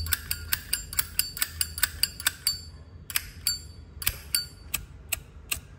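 Zippo lighter lid being snapped open and shut over and over, each snap a sharp metallic click with a brief ring. The clicks come quickly at first, about four a second. After a short pause about two and a half seconds in, they come more slowly.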